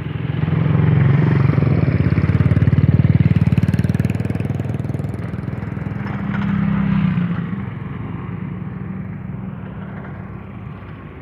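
A small engine running close by. It grows louder over the first few seconds, swells again about seven seconds in, then fades somewhat.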